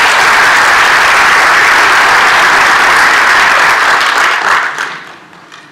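Congregation applauding, steady for several seconds, then dying away near the end.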